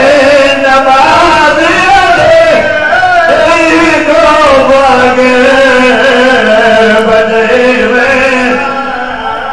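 A man chanting a devotional qasida through a microphone and PA, in long melodic lines with held, wavering notes, trailing off slightly near the end.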